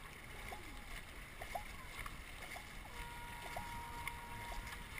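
Dragon boat under paddle: water rushing along the hull and splashing from the crew's paddle strokes.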